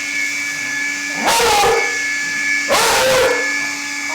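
A beagle barks twice, two loud half-second barks about a second and a half apart, over a vacuum cleaner running with a steady whine.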